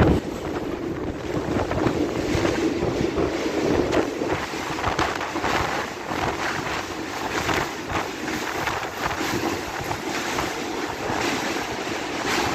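Train running at speed: a steady rush of rail and running noise with irregular rattles, mixed with wind buffeting the microphone.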